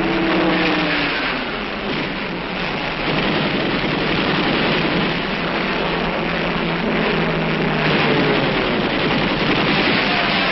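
Steady roar of aircraft engine noise with a faint drone that slides slowly in pitch, swelling and easing slightly without a break.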